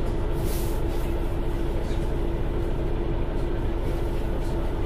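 MAN Lion's City NL323 city bus running: a steady drone with one constant whine held through.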